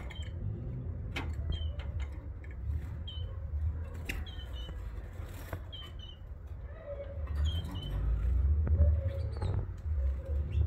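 Young canary fledglings cheeping: short, high chirps repeated every half second to a second, over a low rumble that grows louder near the end, with a few faint clicks.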